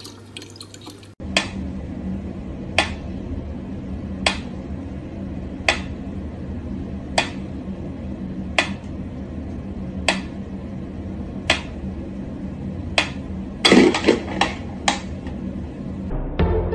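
A wind-up pendulum metronome ticking slowly and evenly, about one sharp tick every second and a half, over a low steady hum. About three-quarters of the way through comes a quick cluster of louder clicks and knocks.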